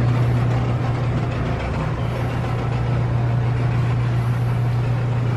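Steady low hum of supermarket refrigerated display cases, with a faint even rushing noise over it.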